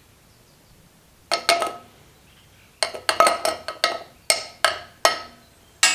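A scoop clinking and tapping against a hard ringing container while graphite and molybdenum powder are measured out by the scoop: a pair of clinks, then a quick cluster, then four single taps about half a second apart.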